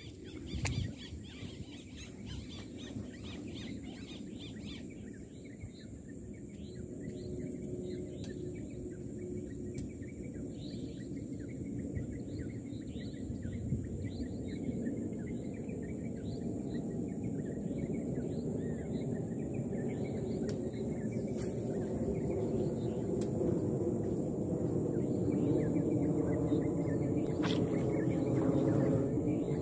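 Small birds chirping in quick, repeated short calls from about five seconds in, over a steady low rumble that grows louder toward the end, with a faint steady high-pitched whine throughout.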